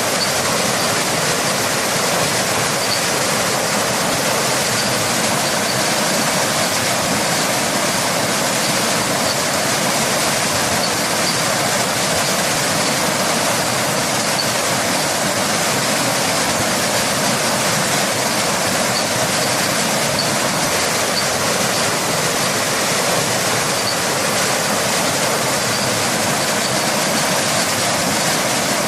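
A waterfall and rain: an unbroken, steady rush of falling water.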